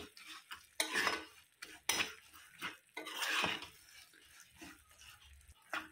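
Flat spatula scraping and knocking against a non-stick kadhai while peanuts and sesame seeds are stirred quickly through sticky, thickening jaggery syrup. There are several separate strokes, about one a second.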